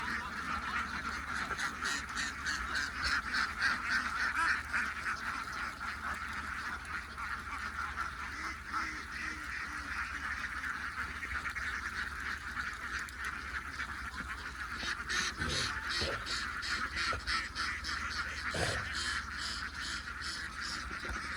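A large flock of ducks quacking continuously, many calls overlapping into a steady din.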